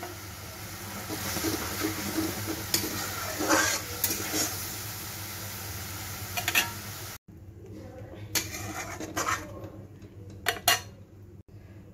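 A metal utensil scraping and clinking against a metal kadhai as a yogurt masala is stirred while it fries, over a steady sizzle. About seven seconds in the sizzle cuts off abruptly, leaving a few sharper clinks and scrapes.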